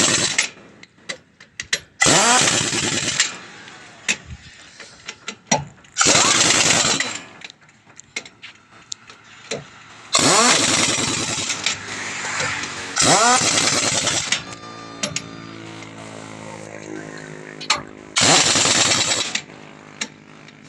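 Pneumatic impact wrench running in about six short bursts, each spinning up with a rising whine and a rush of air, a few seconds apart, at a roadside truck tyre job. Between bursts there are scattered clicks and a steady engine-like hum.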